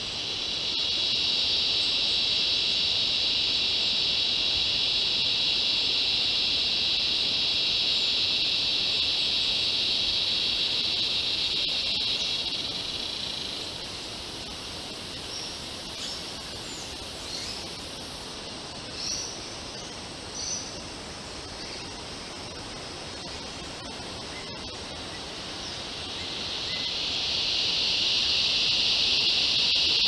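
Insect chorus: a loud, steady, high-pitched drone that swells in, fades away about 13 seconds in, and swells back up from about 26 seconds. A few short, high bird chirps sound in the quieter stretch between.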